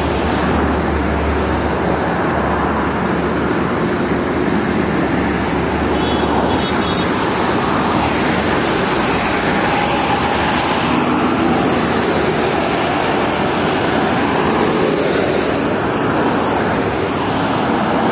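Heavy road traffic with buses passing close by: a loud, steady rush of engine and tyre noise.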